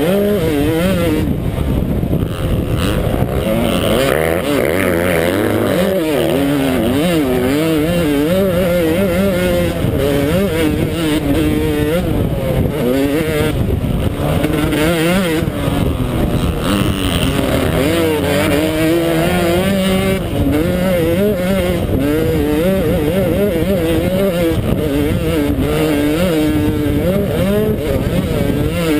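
Yamaha YZ125 single-cylinder two-stroke motocross engine ridden hard, its pitch constantly rising and falling as the throttle is opened and rolled off, picked up close from the rider's helmet camera.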